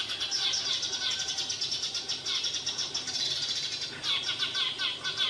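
A flock of small birds chirping together in a dense, rapid chorus of overlapping calls, easing briefly about four seconds in.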